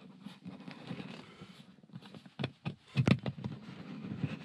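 Plastic lens cover of a ceiling puck light being twisted onto its fixture: a few short clicks and scrapes of plastic on plastic, mostly in the second half.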